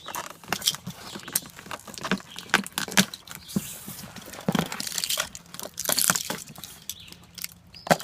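Cardboard box being handled and worked open: irregular clicks and knocks with stretches of scraping and rustling.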